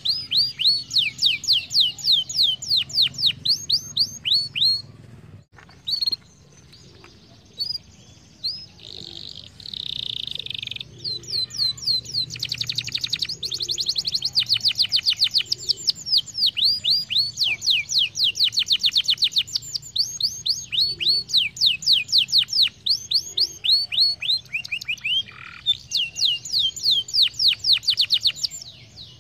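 Domestic canary singing: long, fast trills of rapidly repeated high notes, each sweeping downward, with a short break about five seconds in and a buzzier phrase around ten seconds before the trills resume.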